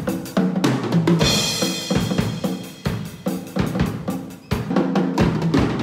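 Acoustic drum kit (ddrum shells, Zildjian cymbals) played in a fast run of snare, tom and bass drum hits. A cymbal crash about a second in rings on under the drumming.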